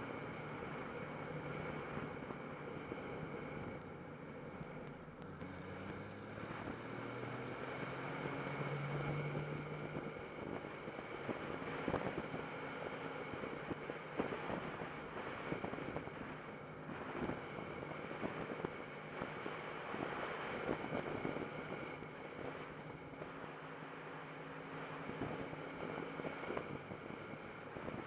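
Turbocharged car engine running, its pitch rising for a few seconds around eight to ten seconds in, with a thin steady high whine held over it throughout: the weird turbo noise the owner is documenting.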